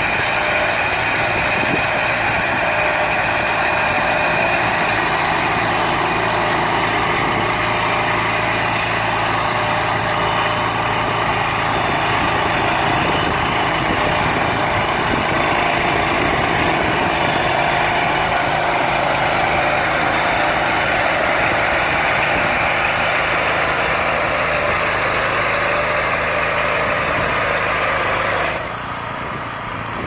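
Small petrol engine of a two-wheel walk-behind tractor running steadily while it drives a CAEB mini round baler gathering hay. The sound drops somewhat in level shortly before the end.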